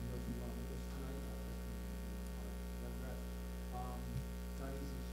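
Steady electrical mains hum on the audio feed, with faint voices far from the microphone.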